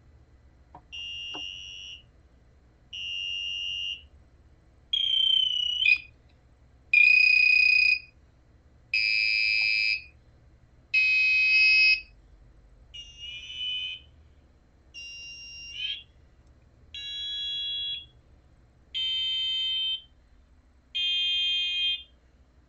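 An Arduino-driven buzzer sounds a string of beeps, each about a second long, one every two seconds. The pitch differs from beep to beep as the potentiometer knob is turned. The tone follows the knob reading but only changes between beeps, because a delay in the sketch pauses the program.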